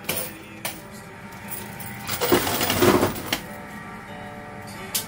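Quarters clinking on a coin pusher's playfield. A few single clinks, then a loud cluster of coins jingling and spilling together about two to three seconds in.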